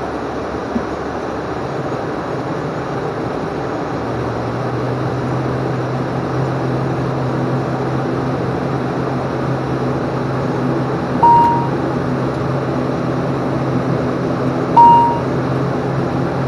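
Cockpit noise of an ATR 42-500's turboprop engines: a steady drone, with a low hum coming in about four seconds in and the level slowly rising. Two short electronic beeps about three and a half seconds apart sound near the end.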